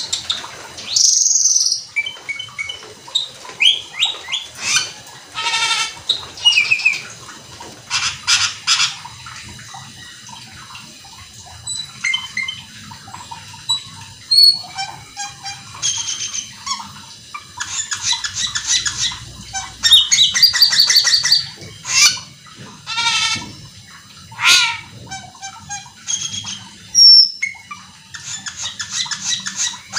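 Asian glossy starling (cucak keling) singing in full, fast song. A varied, unbroken string of sharp whistles, rapid trills and buzzy chatter with only brief gaps.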